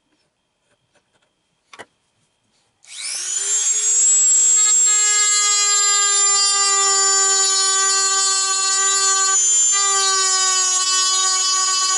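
A high-speed rotary tool (Dremel) clicks on, spins up about three seconds in and runs at a steady, high-pitched whine. The whine dips briefly near the end as the tool bites into the wood.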